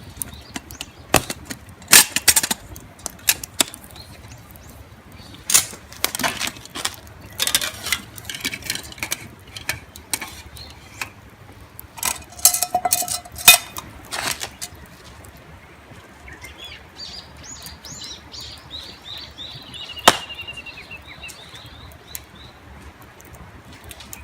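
Irregular clicks and clatter of camp cookware and packaging being handled, with a brief metallic ring about halfway, as leftover rice is readied for warming in hot water. Later a small bird sings a run of quick high chirps in the background.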